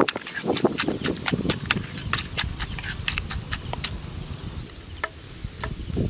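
Wooden pestle and metal spoon knocking and clicking against a clay mortar as its contents are mixed: quick irregular taps, several a second, thinning out after about four seconds.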